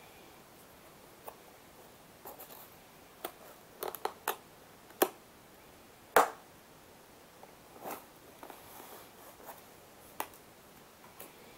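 Fingernails tapping and scratching on a cardboard box: scattered sharp taps and clicks, the loudest about six seconds in, with a few short scratching strokes around eight to nine seconds in.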